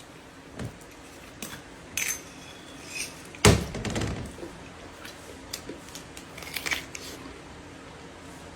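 Cutlery and dishes clinking as people eat, in scattered light clicks, with one louder knock about three and a half seconds in.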